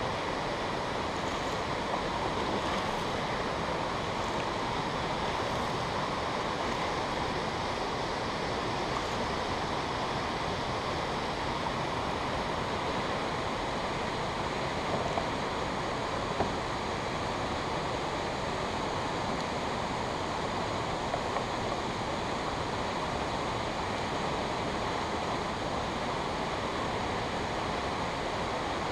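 Steady rush of water pouring through J. Percy Priest Dam's open gates into the tailrace. A few brief knocks stand out around the middle.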